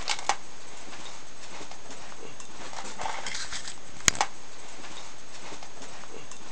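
Light clicks and knocks of a webcam being handled, over a steady background hiss, with one sharp click about four seconds in.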